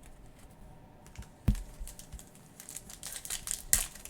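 Trading cards and a foil card-pack wrapper being handled on a table. A sharp tap comes about a second and a half in, then light crackling clicks, then another sharp tap near the end.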